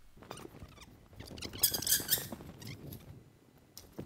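Aluminium extension ladder sliding back over a fire engine's roof rack: a run of knocks and rattles, with a louder metal scrape about a second and a half in.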